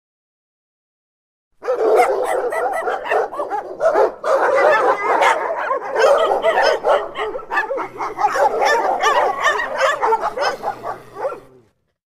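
Dogs barking and yelping in a dense, unbroken run of overlapping barks. It starts about a second and a half in and cuts off suddenly near the end.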